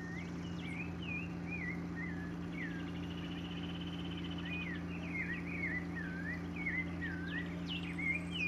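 Birds chirping and whistling in many short sliding calls, with a brief buzzy trill about three seconds in and a low steady hum underneath.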